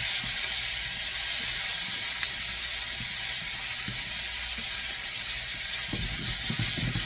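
Sliced red bell peppers and onions sizzling steadily in oil in a hot skillet. A wooden spatula stirs them, and its scraping strokes against the pan are clearest near the end.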